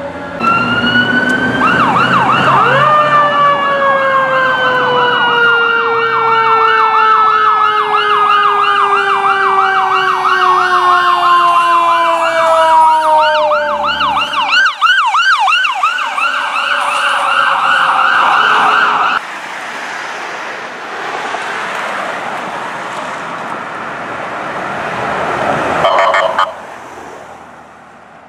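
Emergency vehicle sirens on the street: a rapid electronic yelp siren sounds over a long siren tone that falls slowly in pitch, while a fire engine pulls away and an ambulance passes close by. About two-thirds of the way in, after a cut, the sirens are quieter, and a short loud blast comes near the end.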